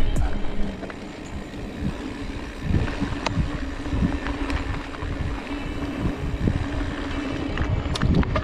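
Mountain bike rolling along a dirt trail: a steady low hum from the tyres, wind on the microphone, and scattered knocks and clicks as the bike goes over bumps.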